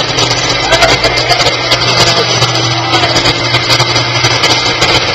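Kitchen blender running at a steady speed, its motor humming under the churning of milk blended with cookies and Oreos into a milkshake.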